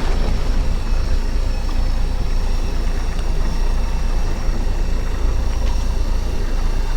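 Fishing boat's engine running steadily with a deep rumble, and a thin steady high-pitched whine over it that fades out near the end.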